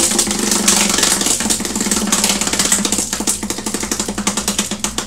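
Prize wheel spinning, its pointer flapper clicking rapidly against the pegs; the clicks slow and thin out as the wheel coasts toward a stop near the end.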